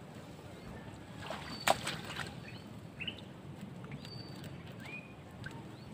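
Steady low wash of water and wind at the shoreline, with a few short bird chirps. A single sharp click about a second and a half in.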